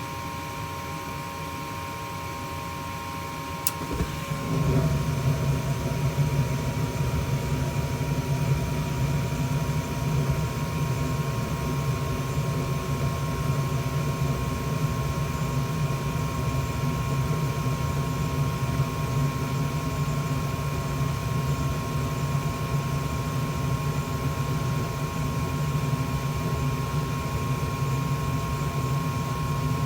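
Gas furnace running with a steady hum. About four seconds in there is a click, and a louder, steady low rumble takes over as the next stage of its heating cycle starts.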